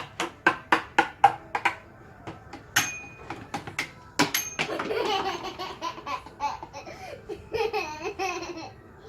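Quick taps of a toy hammer, about three to four a second, then two louder knocks, each with a brief ringing tone, followed by a young child laughing for several seconds.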